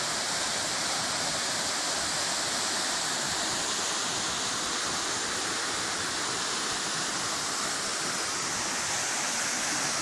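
Small waterfall pouring into a rock pool: a steady, unbroken rush of falling and splashing water.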